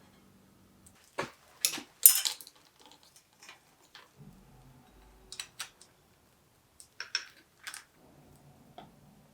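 Metal tools and bicycle parts being handled: a series of sharp clinks and short rattles, the loudest cluster about two seconds in and more around the middle and near the end.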